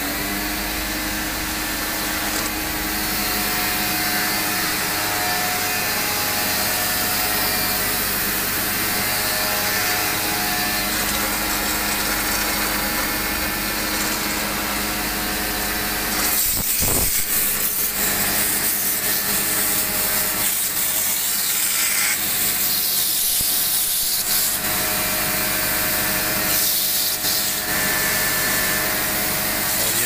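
Electric pressure washer running steadily, its motor hum under the hiss of the water jet as it is forced into the blocked drain of an air conditioner's indoor-unit drip pan to clear the clog. The spray turns harsher about halfway through, with a short knock just after.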